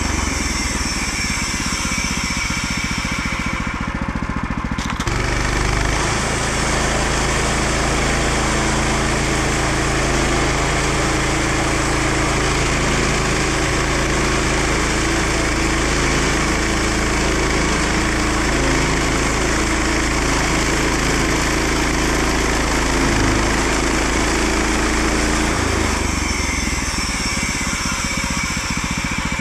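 Small gasoline engine of a Woodland Mills portable bandsaw sawmill running steadily. The sound grows fuller and lower from about five seconds in until near the end, as the blade cuts through a cedar log.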